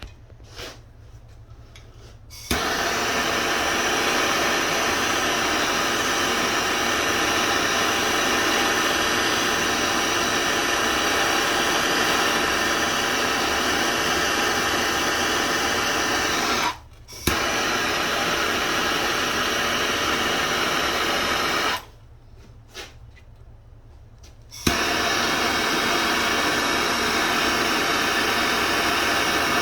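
Gas torch flame burning with a steady hiss while heating copper pipe joints for soldering. It shuts off twice and comes back on, each relight starting with a sharp click.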